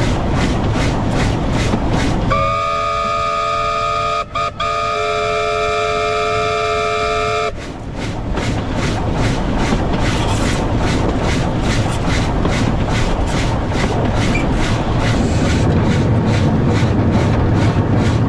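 A W class steam locomotive running with a steady beat of about four chuffs a second. About two seconds in, its steam whistle sounds one long chord of several notes for about five seconds, broken twice for an instant near its start, warning of a level crossing ahead. The chuffing carries on after the whistle stops.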